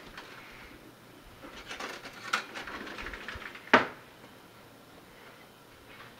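Kitchen utensils being handled as a spoon is taken up to fill cupcake molds: light scrapes and small clicks, with one sharp knock a little under four seconds in.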